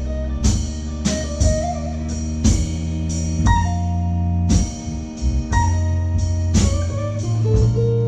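Slow blues instrumental played live: electric hollow-body guitar playing a lead line with bent notes over Hammond organ and drums. The drums accent about once a second.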